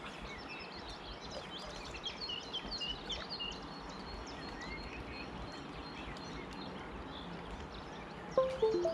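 Many songbirds chirping and singing over a steady rush of river water. A short, louder pitched sound, falling in steps, comes near the end.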